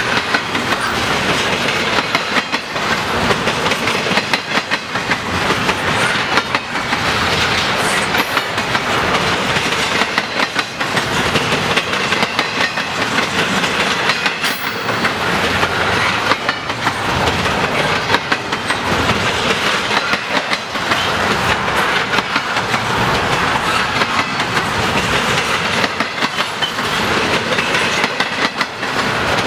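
Cars of a long intermodal freight train rolling past: a steady rolling-wheel noise with a frequent clickety-clack of wheels over the rail joints.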